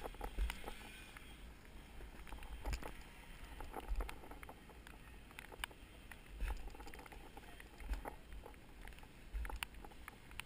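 Wind buffeting the microphone in gusts, with scattered faint clicks and knocks.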